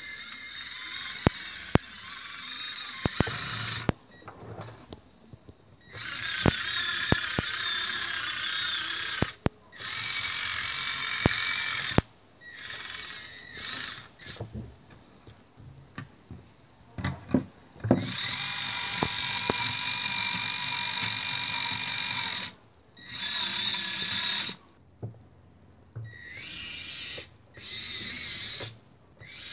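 Small electric motors of a 1/16 scale Bruder CAT compact loader model whining in runs of one to four seconds, stopping and starting again and again, with sharp clicks in between.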